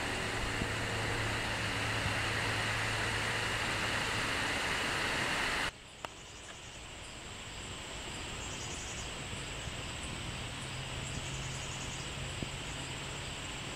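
Steady outdoor background hiss with a low hum underneath. It drops suddenly a little over halfway through, with a single click, then carries on with faint, regular high ticks.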